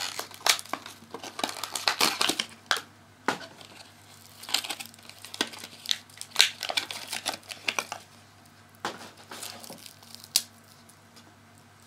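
Plastic packaging crinkling and rustling in irregular bursts with sharp little clicks, as a small vinyl keychain figure is unwrapped and handled by hand. The handling dies away about ten seconds in.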